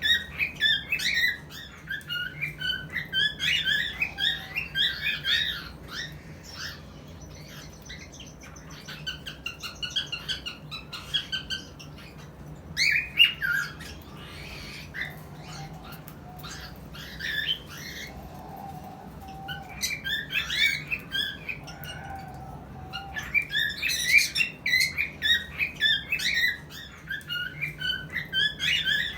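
Cockatiels chirping and squawking in rapid runs of short, high calls, busiest at the start and again over the last several seconds, with a sparser stretch in the middle.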